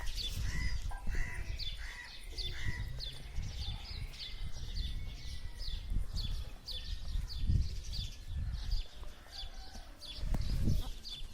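A small bird chirping over and over, short high notes that drop in pitch, about two to three a second, over an uneven low rumble.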